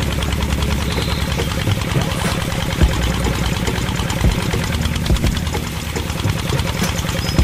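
A small engine running steadily with a rapid, even chugging, sounding for the model diesel-engine water pump as it pumps water.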